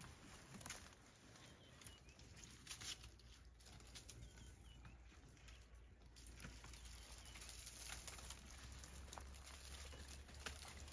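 Faint scattered crackling and snapping of twigs and bark as an African elephant browses in an acacia tree, stripping its bark, over a low steady hum.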